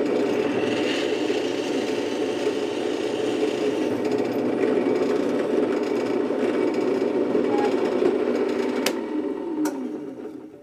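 Bench drill press running steadily while holes are drilled in a small mild steel plate. Near the end there are two clicks, and the motor winds down and stops.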